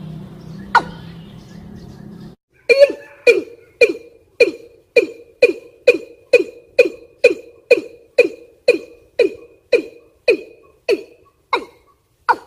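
Female watercock (ayam-ayaman) lure call: a long series of short, sharp notes at about two a second, slowing slightly near the end. It is the call of a female in breeding condition, used to draw in males. A low hum runs under the first two seconds and cuts off suddenly.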